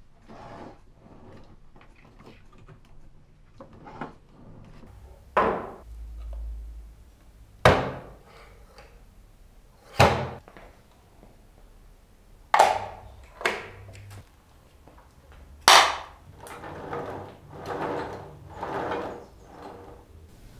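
Wooden knocks and clacks from a handmade wooden model dump truck being handled: its tipper body is raised and set back down onto the wooden chassis. There are about six sharp knocks a couple of seconds apart, with softer wooden scraping and rattling between them.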